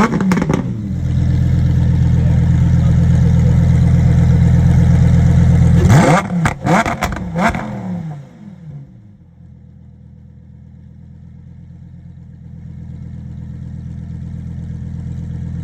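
Lamborghini Huracán STO's naturally aspirated V10 being revved while stationary. A quick blip at the start, then the engine is held at a steady higher speed, a few sharp throttle blips about six seconds in, and a quieter idle that slowly swells toward the end.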